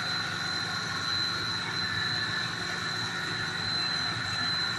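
Puffed corn snack extrusion line running: a steady machine drone from the motors with a constant high whine over it.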